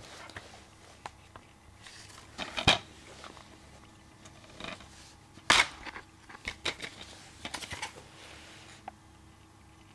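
Plastic DVD case being handled and turned over, with rustling and clicks; a sharp snap about halfway through as the case is opened, then a run of small clicks and taps.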